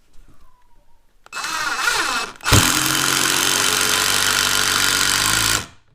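Cordless impact driver driving a screw with a Phillips bit: a short spin-up of about a second, then about three seconds of steady hammering as the screw is driven home, stopping abruptly near the end.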